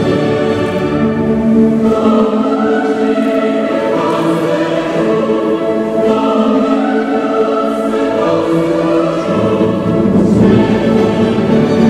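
Large mixed choir singing a Polish Christmas carol with orchestral accompaniment led by bowed strings; the lower voices and instruments fill out about nine seconds in.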